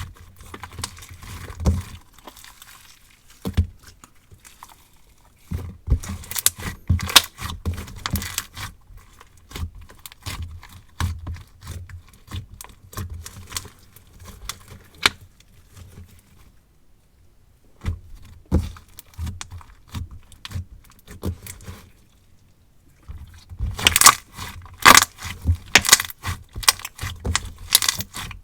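Hands squishing, stretching and poking a marshmallow lemon slime made with Elmer's glue, giving clusters of sticky clicks and pops. There is a short pause past the middle, and the clicking is busiest near the end.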